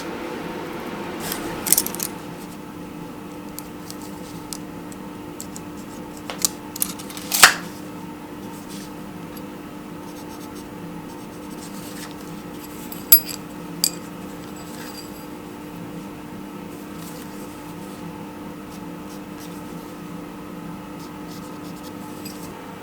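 Steady hum of a coal forge's air blower, with a few sharp metallic clinks of tongs and steel scattered through, the loudest about seven seconds in.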